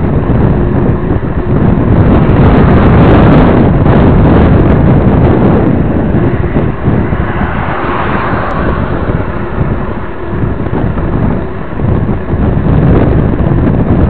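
Loud wind buffeting the microphone of a camera carried on a moving bicycle, a rushing noise that swells and drops in gusts.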